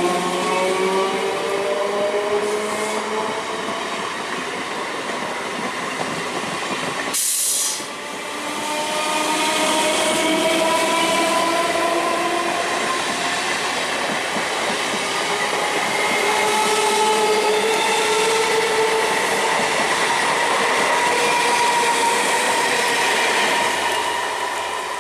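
Conventional EMU electric local train accelerating, its traction motors humming in several tones that climb steadily in pitch as it gathers speed. About seven seconds in there is a brief sharp break, then the rising motor hum starts again and climbs on.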